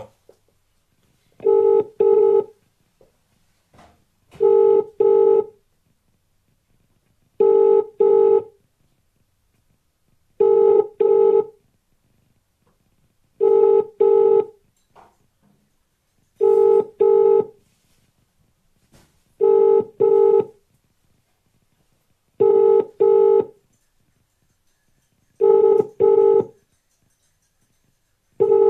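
British telephone ringing tone heard by a caller: a double ring, two short buzzing beeps repeating every three seconds, from an outgoing call that is ringing and not yet answered.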